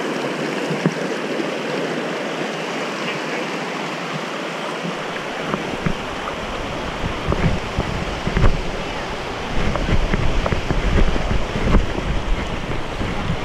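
Shallow mountain creek rushing steadily over rocks. From about halfway, wind buffeting on the microphone adds a gusty low rumble.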